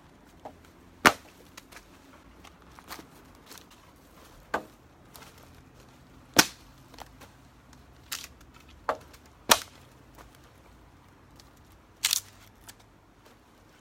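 Campfire of dry cedar foliage crackling, with sharp irregular pops: about six loud cracks and several smaller snaps.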